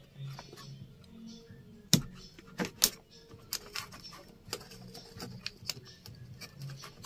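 Plastic clicks and rattles of a dashcam charger plug being handled and pushed into a car's 12-volt power socket, with a few sharp clicks about two to three seconds in.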